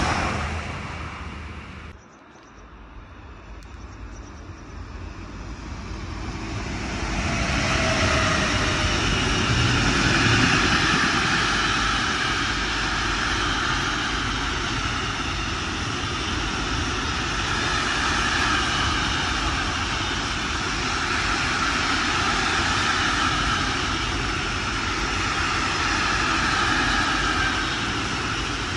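A container freight train rolling past close by: a steady rolling noise of wagons on the rails that builds over the first several seconds and then holds. At the start, a departing Intercity train fades away before an abrupt cut about two seconds in.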